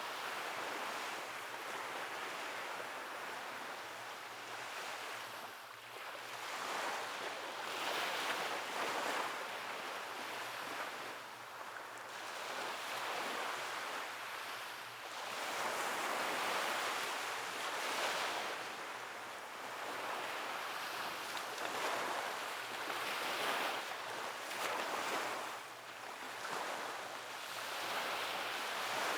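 Ocean waves breaking and washing on a beach, the surf swelling and falling back every few seconds. A light wind runs underneath.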